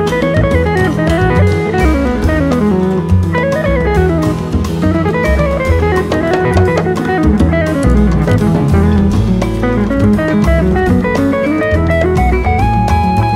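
Instrumental background music with guitar over a drum kit and a steady bass line.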